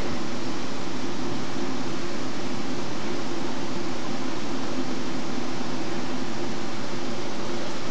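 Steady hum and hiss of background machinery noise, unchanging throughout.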